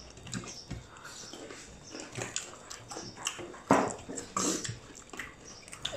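Close-up eating sounds: wet chewing, lip smacks and mouth clicks of people eating by hand, with two louder crunchy, squishy bursts a little past the middle.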